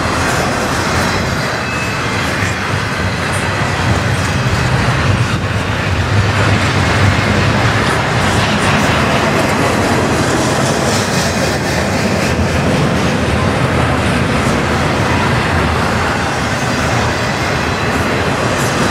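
A long CN intermodal freight train's cars rolling steadily past: continuous wheel-on-rail noise with scattered clicks from the wheels.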